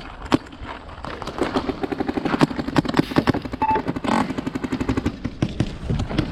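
Paintball markers firing rapid strings of shots, many pops a second, starting a little over a second in and going on almost to the end.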